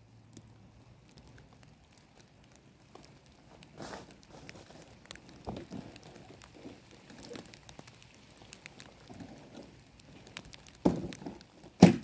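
Handling noises at a stopped lawnmower: light rustling and small knocks as parts are handled, then two loud sharp clunks about a second apart near the end.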